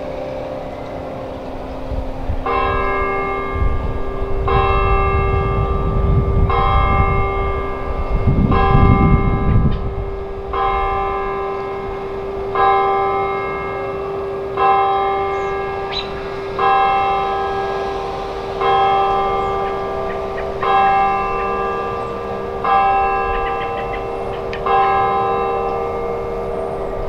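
A single church bell tolling, struck about once every two seconds, each strike ringing on into the next. A low rumble runs under the first few strikes.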